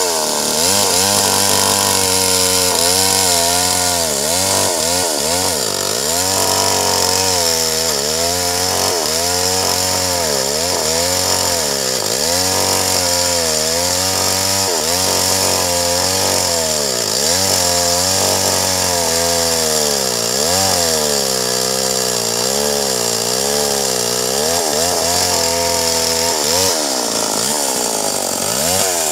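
Stihl MS 381 two-stroke chainsaw running at high revs while ripping lengthwise through a large red meranti log. The engine pitch dips and recovers over and over as the chain loads up in the cut.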